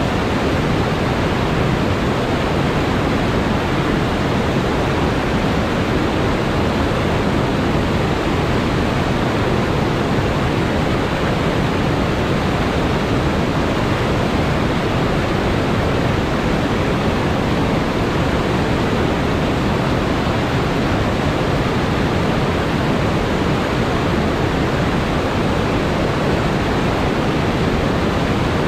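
Waterfall whitewater pouring over rock ledges: a steady, unbroken rush of falling water, heaviest in its low, full rumble.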